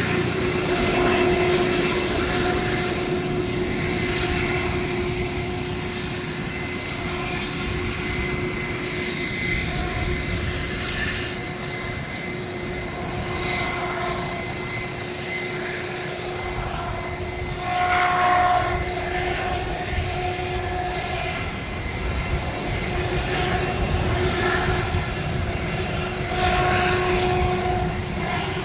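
Aircraft engine running steadily, a continuous rushing noise with a steady whine that swells now and then.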